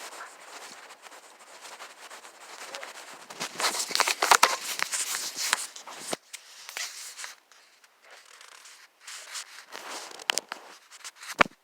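Rustling and crackling with many scattered sharp clicks, busiest about four to five seconds in, quieter later, with a sharp click near the end.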